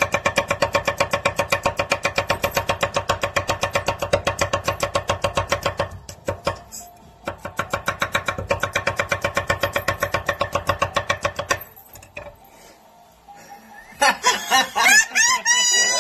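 Fast-pulsing background music with a rapid, even beat, with a short break about 6 seconds in, stopping about 12 seconds in. About 14 seconds in, a crowing rooster starts.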